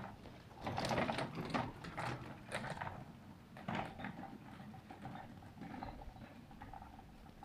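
Footsteps on outdoor stairs: a run of irregular scuffs and taps, loudest in the first three seconds, then fainter.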